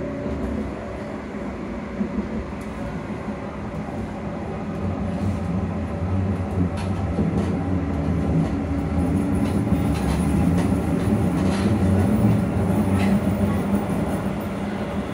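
An electric train's AC traction motors running under way, heard from inside the carriage as a steady low hum with rail and running noise. The hum grows louder from about five seconds in and eases slightly near the end.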